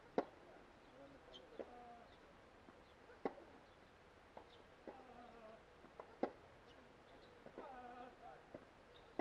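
Tennis rally on a hard court: sharp pops of the ball off racket strings and bounces on the court, a few seconds apart. The near-end strokes are the loudest, about three of them.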